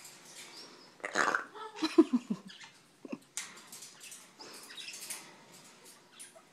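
African grey parrot making burping noises: a burst about a second in, then a lower, pitched burp falling in pitch about two seconds in, the loudest sound. A few short clicks follow about three seconds in.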